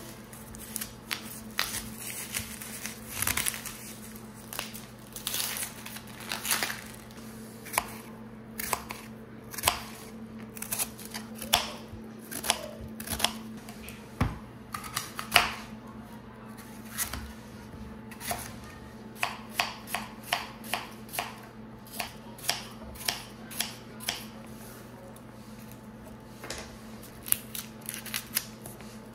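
Kitchen knife chopping an onion on a wooden cutting board: a long series of sharp knocks, at times about two a second, over a steady low hum.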